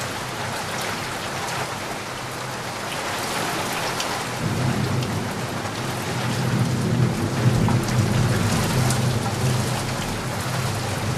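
Steady hiss of rain with fine pattering ticks. A low rumble joins it about four seconds in.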